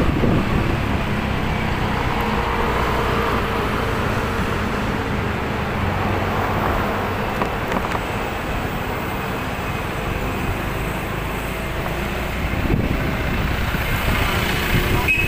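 Steady engine and road noise of a moving vehicle, heard from on board while travelling along a city street. A brief high-pitched squeal starts right at the end.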